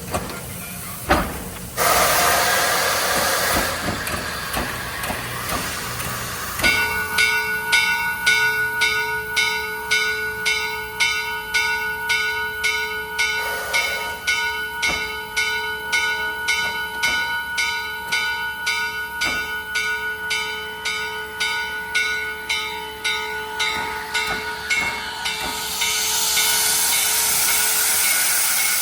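Steam locomotive letting off a burst of hissing steam, then its bell ringing at an even pace, struck over and over for about twenty seconds. Near the end the bell stops and a loud steam hiss rises again.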